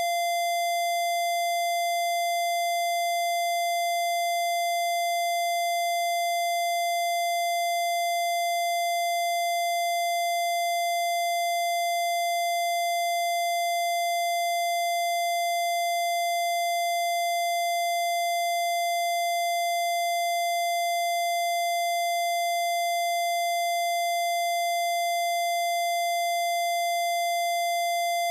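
Steady electronically generated tone: one unchanging mid-pitched note with faint higher overtones, held without a break. It is played as a 'R. frequency' meant to treat parasites.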